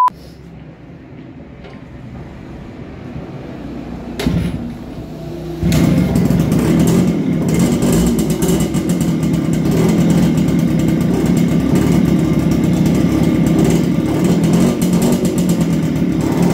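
Motorcycle engine starting about six seconds in and then idling steadily.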